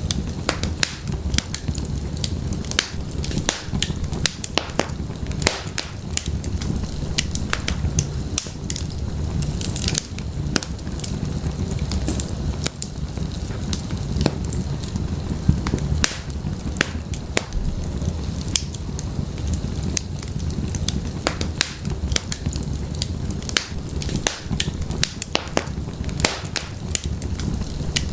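Wood fire burning in a fireplace: frequent irregular crackles and pops of burning firewood over a steady low rumble of the flames.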